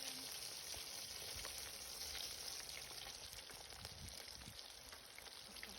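Breaded chicken wings deep-frying in hot oil: a steady sizzle with scattered small crackles.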